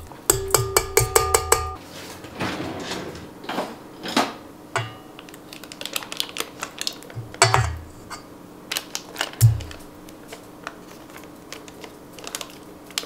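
Rapid taps of a measuring cup knocking packed brown sugar out against a stainless steel mixing bowl, the bowl ringing, for about the first second and a half. Then scattered light clicks and rustles as a stick of butter is peeled from its paper wrapper and scraped into the bowl.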